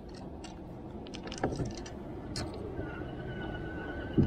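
Electric trolling motor starting up about three seconds in with a steady thin whine, set going from the hand-held remote. Under it is a low steady rumble, with a few light clicks from handling the remote earlier on.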